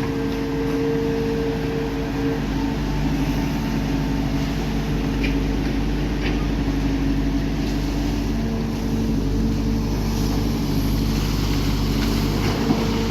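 Heavy diesel machinery engine running steadily, with a constant hum.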